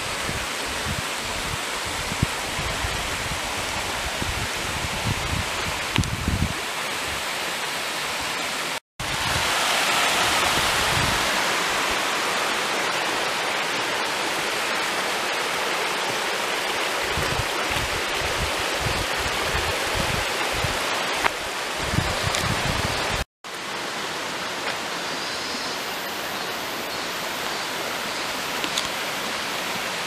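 Mountain stream rushing over rocks, a steady hiss of water, with scattered low thumps. The sound drops out briefly twice, about 9 and 23 seconds in, and is louder and brighter just after the first break.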